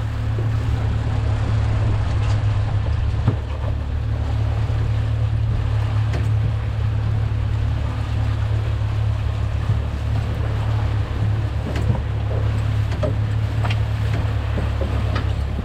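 A boat's outboard motor runs with a steady low drone, over the wash of water against the hull, with a few faint knocks.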